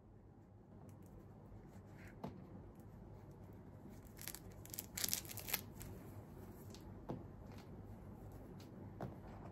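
Hands handling a plush fabric snuffle toy, folding the cloth pieces around hidden treats: faint cloth rustling with scattered small clicks, and a cluster of sharper rustles about four to five and a half seconds in.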